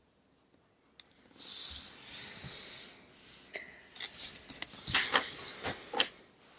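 A drawing tool stroking and scratching on smooth marker paper: one longer stroke about a second and a half in, then a run of short scratches and light taps.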